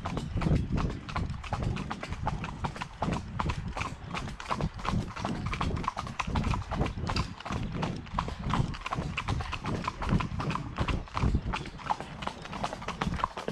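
Hooves of two ridden horses, the nearer a KWPN warmblood gelding, clip-clopping on a gravel path in a steady, even rhythm of footfalls.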